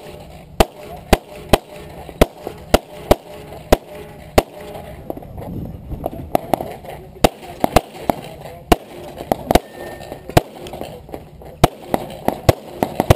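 Semi-automatic pistol firing a long string of about twenty shots, mostly about half a second apart, with a couple of longer pauses between groups of shots.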